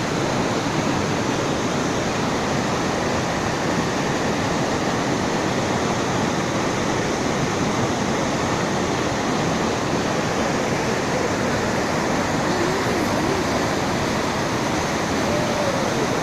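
Steady rushing water, an even roar without breaks.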